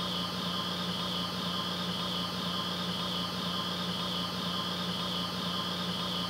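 A steady hum with hiss: a low drone and a high whine that wavers at an even pace, unchanging throughout.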